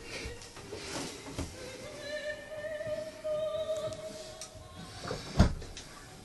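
Background music with a long held note, about two to four and a half seconds in, over a few sharp knocks; the loudest knock comes about five and a half seconds in.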